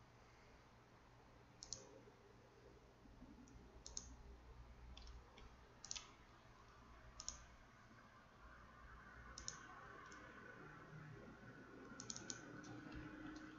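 Faint computer mouse clicks, about eight spread through the stretch with a couple in quick pairs, over a quiet low room hum.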